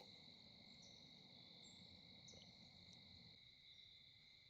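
Near silence with the faint, steady, unbroken trill of crickets.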